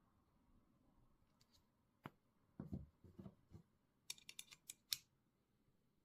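Handling of a metal multitool: a few dull knocks, then a quick run of about eight sharp clicks and snips, like small metal parts or scissors being worked.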